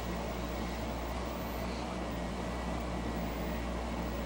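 Steady background hiss with a low electrical hum, unchanging and with no distinct events: the room tone and noise floor of an old videotape recording.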